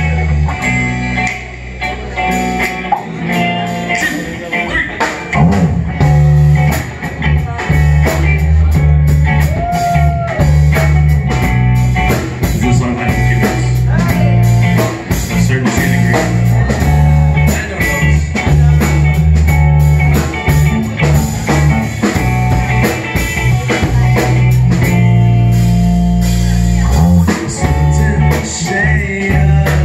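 Live band playing: electric bass, electric guitar and drum kit, with a man singing into the microphone. The bass comes in heavily about five seconds in.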